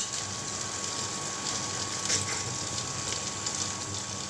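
Sliced onions and green chillies sizzling in hot oil in an aluminium pressure cooker, a steady crackling hiss, with one faint light tap about two seconds in.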